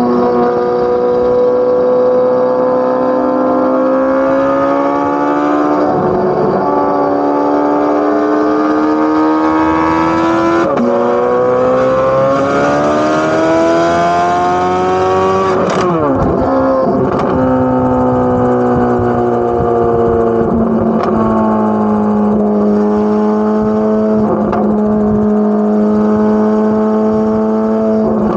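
Corvette C8 Z06's flat-plane-crank 5.5-litre V8 exhaust under load, the revs climbing with brief breaks about 6 and 11 seconds in, then falling away sharply about 16 seconds in. It then holds a steady, lower note.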